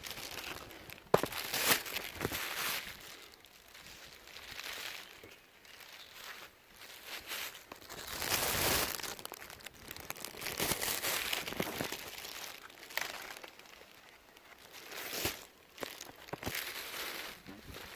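Irregular rustling and crunching of dry material, coming in bursts, with a sharp snap about a second in.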